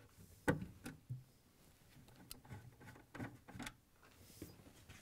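Light, scattered clicks and knocks of a 1/4-inch nut driver working screws out of the plastic water filter bracket on a refrigerator's back wall, about seven taps spread over a few seconds.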